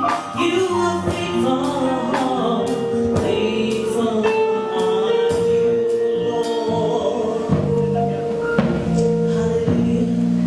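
Live gospel music: voices singing with a band, long held notes over a regular beat of percussion strikes.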